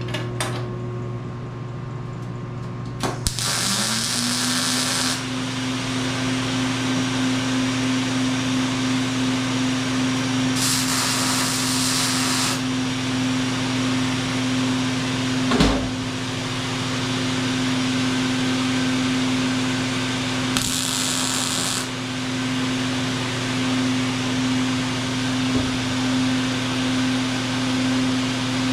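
An electric power tool's motor starts a little over three seconds in, winds up to speed and runs at a steady pitch, with short bursts of hiss about three times. There is one sharp knock about halfway through.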